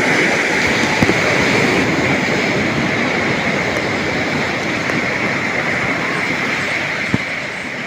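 Ocean surf rushing in a steady, unbroken roar, with two small clicks, one about a second in and one near the end.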